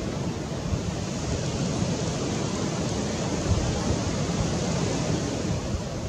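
Steady wind noise on the microphone: an even rushing hiss with low rumble and a few soft low bumps.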